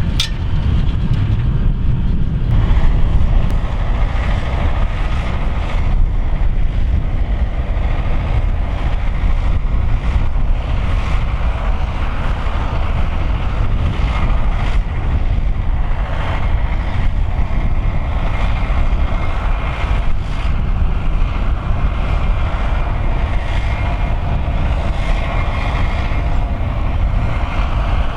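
Fendt 724 tractor engine running steadily under load while pulling a five-furrow plough up a steep bank.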